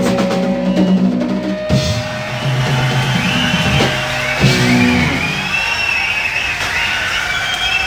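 Rock band ending a song: held low guitar chords broken by drum hits, the last about four and a half seconds in. After that the chords give way to a noisy wash with high wavering tones.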